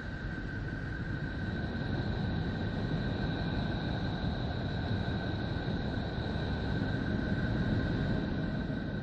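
Sonified space recording of a planet, made by converting electromagnetic waves into sound: a steady low rumbling hiss with two thin high tones held unchanged over it.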